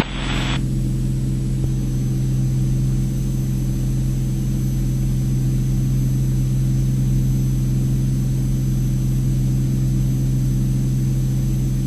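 Cirrus SR22T's turbocharged six-cylinder engine and propeller droning steadily at climb power, heard from inside the cabin.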